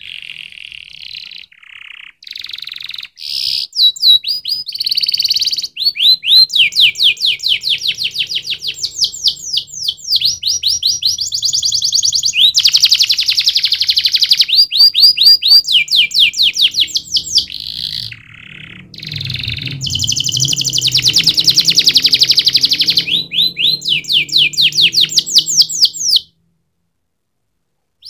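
Domestic canary singing a long song of fast trills: runs of rapidly repeated high notes that switch to a new phrase every second or two. The song stops abruptly near the end.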